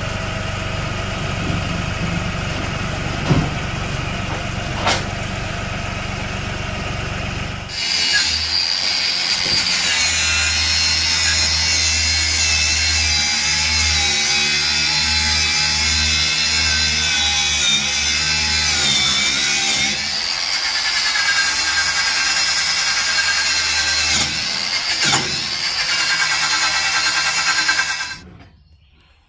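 A compact tractor's engine running for the first several seconds. Then, about eight seconds in, an angle grinder whines as it grinds the rusty cast-iron top of a wood cook stove, cutting off near the end.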